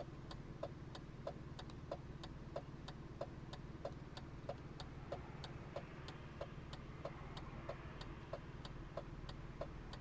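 Car turn-signal or hazard flasher relay ticking steadily, about three clicks every two seconds, over the low steady hum of the idling engine.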